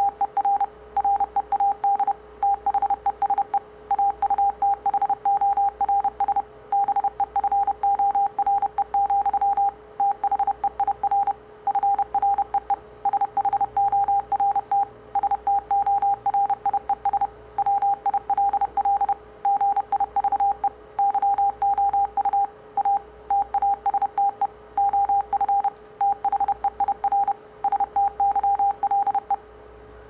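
Morse code sent at 30 words per minute as a pure sine-wave tone from a speaker, a rapid string of on-off beeps that stops shortly before the end. A faint steady hum lies underneath.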